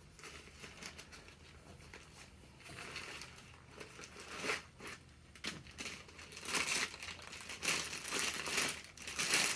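Crinkling and rustling of a bag or wrapping being handled as lightweight tent poles are unpacked, faint at first and growing busier and louder in the second half.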